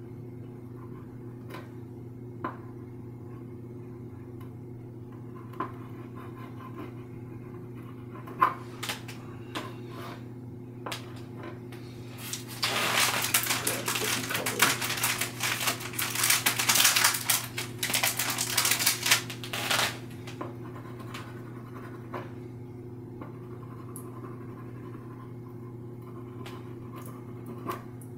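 Oil pastel scratching across a toned painting panel: scattered light taps and short strokes, then about seven seconds of vigorous scribbling in the middle. A steady low hum runs underneath.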